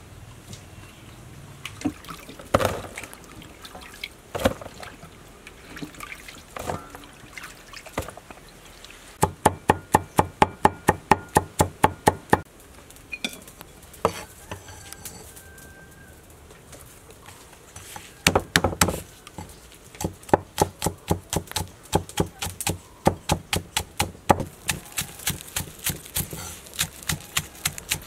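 Cleaver chopping spring onions on a wooden cutting board: runs of quick, even strokes at about five a second, with a few scattered single knocks between the runs.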